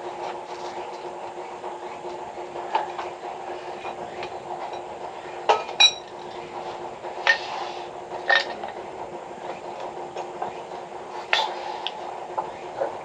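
A few sharp metal clinks and knocks, two close together with a brief ringing note about halfway in, over a steady mechanical hum.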